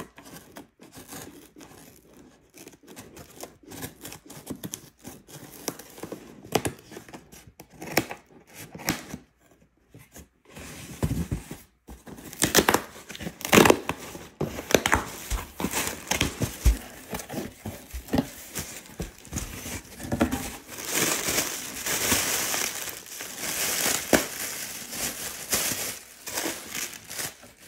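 Cardboard shipping box being torn open by hand: its tape and cardboard ripping, with rustling and crinkling of the packaging. Light scattered rustles at first, then louder and more continuous ripping from about halfway through.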